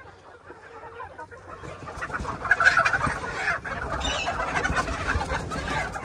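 A flock of Sonali chickens clucking and squawking in a commotion as they are chased to be caught, faint at first and growing louder from about two seconds in, with scattered scuffling clicks.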